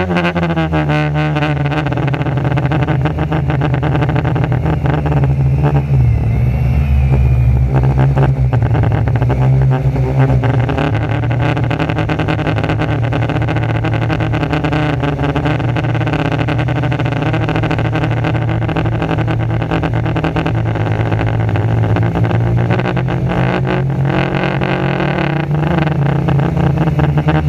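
Quadcopter motors and propellers running in flight: a steady motor hum whose pitch wavers about six to eight seconds in, with wind buffeting the on-board camera microphone.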